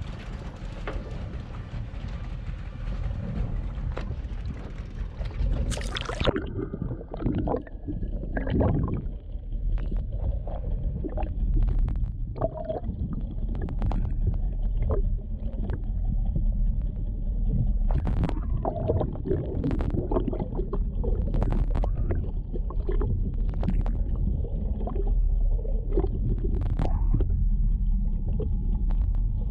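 Sea water rushing past a camera held at the surface from a moving boat. About six seconds in the camera goes under and the sound turns muffled: a steady low rumble with gurgling, bubbling and scattered knocks.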